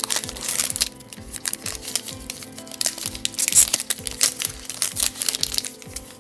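Foil wrapper of a Panini Absolute football card pack crinkling and tearing as it is ripped open by hand, then rustling as the cards are slid out, loudest in the first second. Quiet background music with steady held notes underneath.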